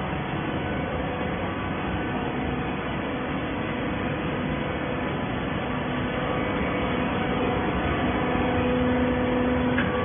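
TCM horizontal auto-tie hydraulic baler running: a steady machine hum with noise, growing a little louder over the last couple of seconds.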